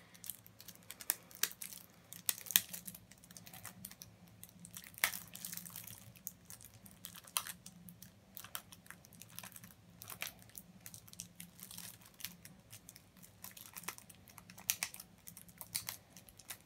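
Plastic wrapping being crinkled and torn open by hand: a long run of irregular, faint crackles and snaps, with a handful of sharper ones.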